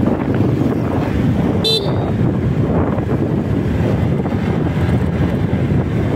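Wind buffeting the microphone on a moving Honda Click 125i scooter, over the steady drone of its single-cylinder engine and road noise. A short high beep sounds once, about two seconds in.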